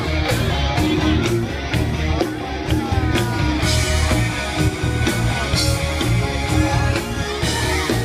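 Live rock band playing loud through the stage sound system: electric guitars, bass, drums and keyboard over a steady beat.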